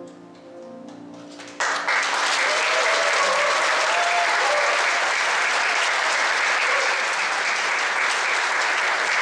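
The closing chord of the instrumental accompaniment dies away. About a second and a half in, an audience breaks into loud applause that carries on steadily.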